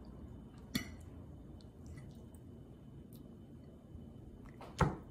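A metal fork clicking and scraping on a ceramic plate while spearing pieces of food: one sharp click about a second in, a few faint ticks, and a louder knock near the end.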